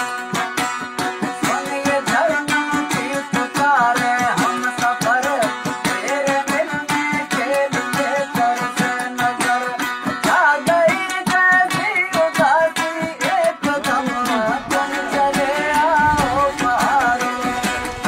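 Background music: a wavering, ornamented melody line over fast, steady percussion.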